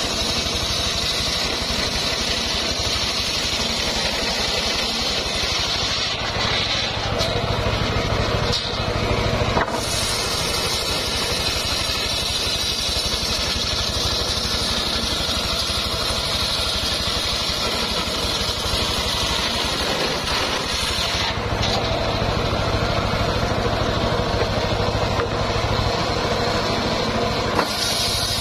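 Homemade engine-driven circular sawmill running steadily while sawing timber. It gets louder for a few seconds about six seconds in, then drops back sharply, and it grows louder again from about twenty-two seconds in.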